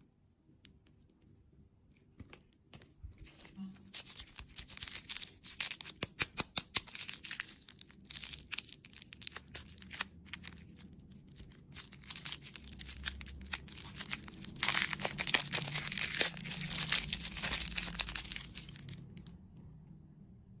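Packaging being torn open and crinkled by hand: a long run of sharp crackles and rustles that starts about two seconds in and fades away near the end.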